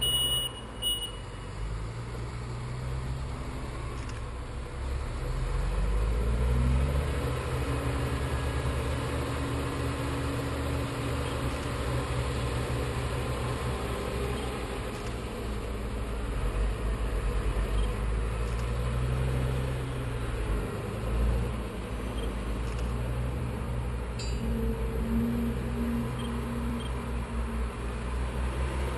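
Heavy diesel earthmoving machinery, articulated dump trucks and a bulldozer, running steadily with a low rumble. One engine revs up about six seconds in.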